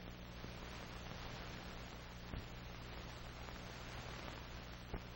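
Faint steady hiss with a low hum, the background noise of an old film soundtrack, with two faint ticks, one about two seconds in and one near the end.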